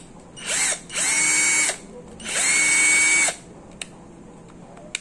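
Bossytoo DLW12V 12-volt cordless drill running free with no bit, in three short trigger pulls. On each pull the motor whine rises quickly to a steady pitch and dies away when the trigger is released; the last run is the longest, about a second. Two small clicks come near the end.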